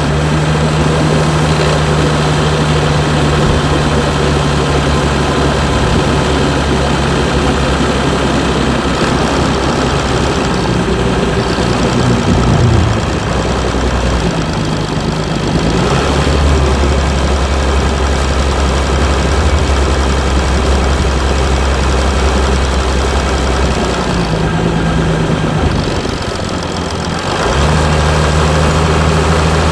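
Mercedes E320 CDI V6 diesel engine running with a steady drone. Its tone shifts about halfway through and changes again near the end.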